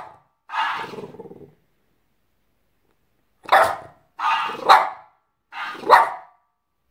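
French bulldog barking in short bouts: one longer, gruff bark about half a second in, then after a pause of about two seconds a run of several sharp barks.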